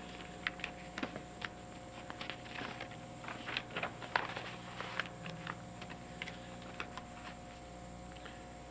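Soft, scattered rustles and clicks of papers being handled, busiest in the middle, over a steady electrical hum.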